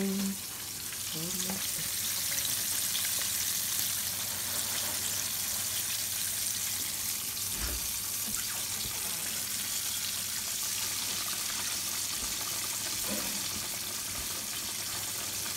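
Breaded fish frying in hot oil in a skillet: a steady sizzle with faint crackles throughout.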